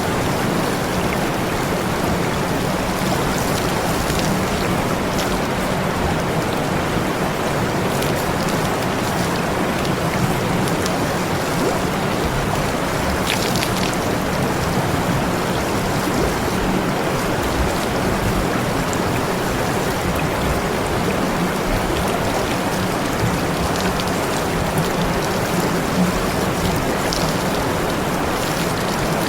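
Steady rushing hiss of spraying water with a low hum underneath, running unbroken.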